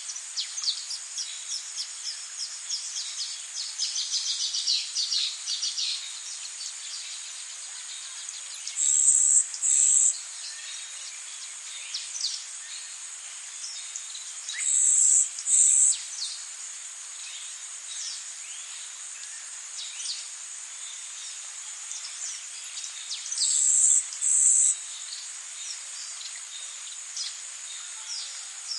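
Forest ambience of insects and birds: a steady high-pitched insect drone, broken three times by a louder doubled buzz, with a quick run of bird chirps in the first few seconds and scattered single chirps after.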